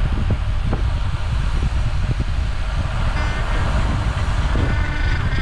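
Wind rushing over the microphone of a moving bicycle ride, a steady low rumble, with faint high-pitched calls joining about three seconds in.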